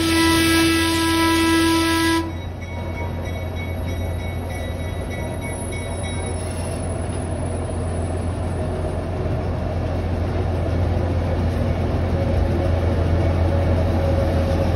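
Locomotive horn holding a blast that cuts off about two seconds in, followed by the steady rumble of the moving train, growing slightly louder toward the end.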